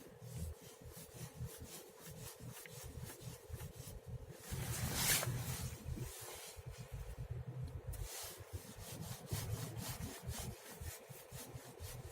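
Knocking in a Škoda Rapid's steering as the steering wheel is turned: a run of sharp clicks, several a second, with a louder stretch about five seconds in, over a low hum. The knock is the steering fault being shown.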